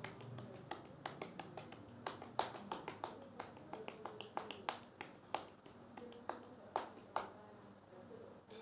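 Oiled hands massaging a bare calf and knee, the palms and fingers making quick, sharp wet smacks on the skin, several a second and irregular, thinning out toward the end.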